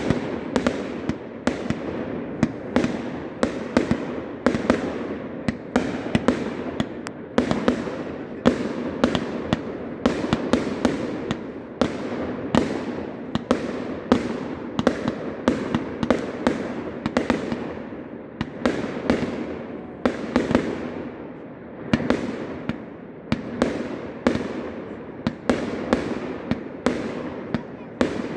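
Fireworks display going off continuously: a rapid, uneven barrage of bangs and reports, several a second, over a steady crackle.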